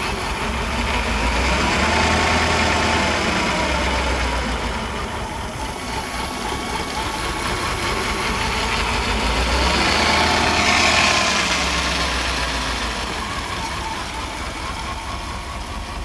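Mercedes-Benz 420SEL's 4.2-litre V8 running rough and misfiring, its revs rising and falling twice. The misfire is in one cylinder, which the owner later finds has low compression and no fuel on its plug.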